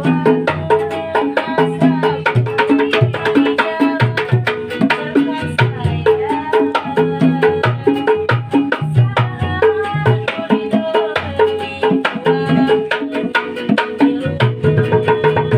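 Street buskers playing music: hand drums keep a quick, steady beat under a pitched melody line.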